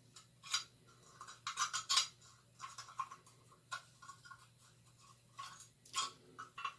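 Rusty antique gate lock and its key being worked together: scattered metal clicks and short scrapes, several close together near two seconds in and again near six seconds in.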